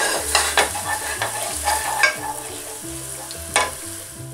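Chopped onion sizzling in melted butter in a hot casserole as it browns, stirred with a wooden spoon. The spoon scrapes and knocks against the pan several times, the sharpest stroke about three and a half seconds in.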